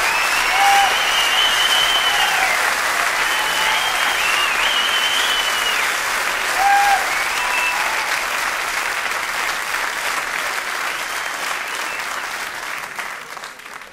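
Concert audience applauding after a song, with whistles rising and falling over the clapping in the first half; the applause fades out near the end.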